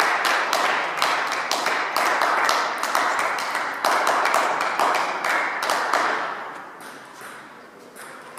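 Table tennis balls clicking sharply on tables and bats, many short irregular ticks, over a dense din of hall noise that fades away about six seconds in.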